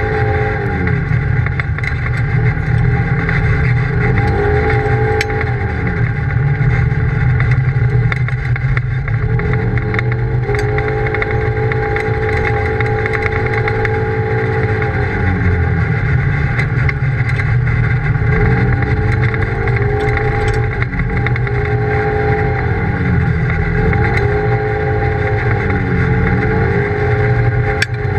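Polaris RZR side-by-side's engine repeatedly revving up and easing off as the throttle is worked along a dirt road, over a steady low rumble, heard from inside the open cab. Occasional sharp ticks sound over it.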